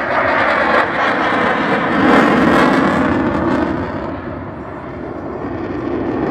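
An aircraft flying past with loud engine noise, loudest about two seconds in, easing off, then building again near the end.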